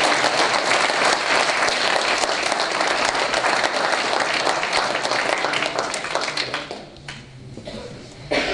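Audience applauding, dying away about seven seconds in.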